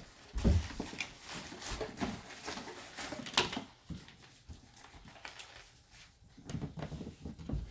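A thud about half a second in as a child's feet land from a cartwheel on a carpeted floor, then rustling and light knocks of objects being handled and packed into a drawstring bag, with a sharp clack a little past three seconds.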